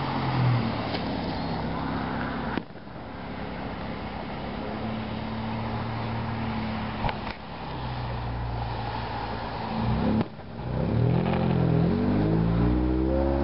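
Motor engines running, their pitch shifting and gliding up and down as they rev, with two faint sharp cracks.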